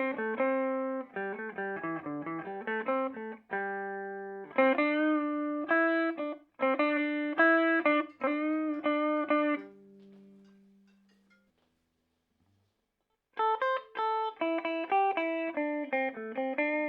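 Electric guitar played clean through a Peavey Bandit 112 combo amp's clean channel in modern voicing, from the high-gain input: picked single notes and arpeggiated chords. Near the middle the last note is left to ring and fade to silence, and after about two silent seconds the picking starts again.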